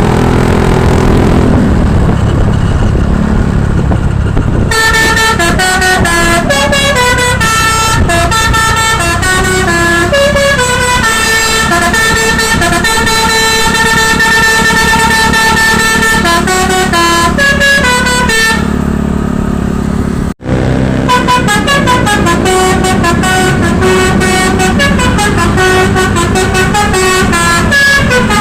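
Bus engine running, then about five seconds in a Basuri telolet horn starts playing a loud multi-note melody, stepping between held notes and quick runs. The tune breaks off briefly about twenty seconds in and then carries on.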